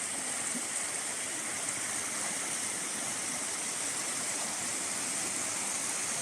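River water flowing: a steady rushing of a stream running over rocks.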